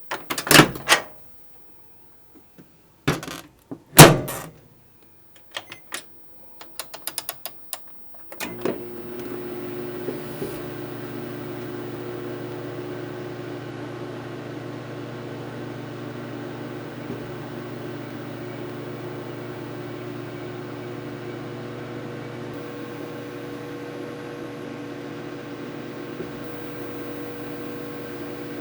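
Microwave oven being set and started: a few loud clacks, then a quick run of small clicks. About eight and a half seconds in it starts up and runs with a steady hum.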